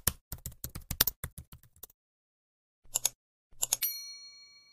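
About a dozen rapid typing clicks in two seconds, then two short rattles and a single bell ding that rings on and fades out, like a typewriter sound effect.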